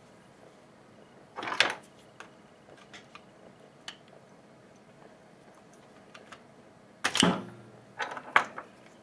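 Clicks and clatter of hedge trimmer parts and hand tools being handled on a workbench: a short rattle about a second and a half in, then a louder knock and clatter near the end, with a few faint ticks between.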